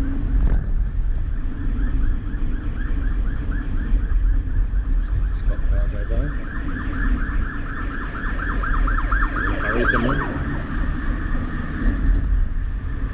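A siren going in a fast, repeating up-and-down yelp, growing louder to a peak about ten seconds in and then fading. It is heard from inside a moving Corvette C7 over the steady low rumble of its 6.2-litre V8 and road noise.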